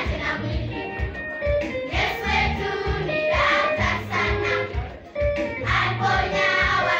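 Children's choir singing together, with a brief drop about five seconds in before the voices come back in.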